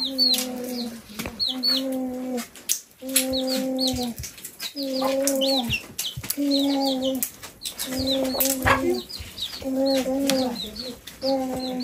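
Chickens calling: high, thin peeps from young chicks over a repeated low, drawn-out call about once a second.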